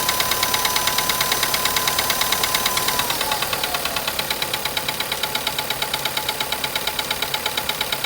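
Car engine idling with a rapid, even metallic knock, about six or seven knocks a second, which the owner takes for piston slap.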